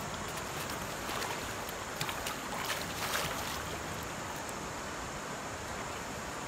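Steady rush of a shallow stream flowing over rocks, with a few faint crackles about two to three seconds in.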